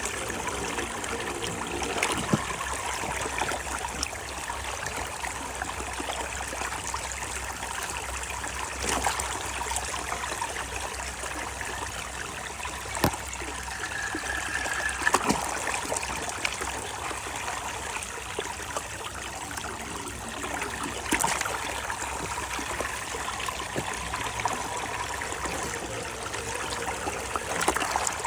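Running water trickling steadily, with a few sharp clicks scattered through it.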